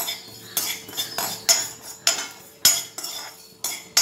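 Sesame seeds dry-roasting in a black kadai, popping, while a metal spoon stirs them and clinks and scrapes against the pan. Sharp clicks come irregularly, about eight of them.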